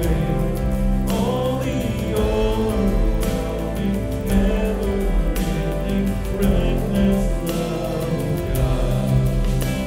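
Contemporary worship song: a man singing into a microphone over a full accompaniment track, with a steady accent about every two seconds.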